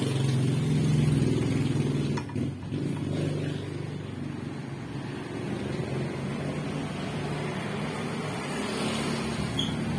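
An engine running with a steady low hum, loudest about a second in and then easing off slightly.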